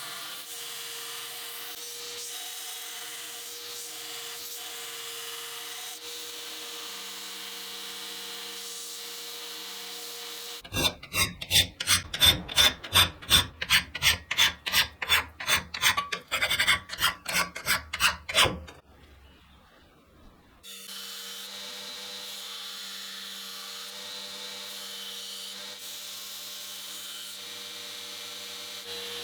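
Belt grinder running steadily with a constant hum. In the middle, about eight seconds of loud, regular scraping strokes, roughly three a second, like metal being worked back and forth on the blade, then a brief drop to near quiet before the steady running resumes.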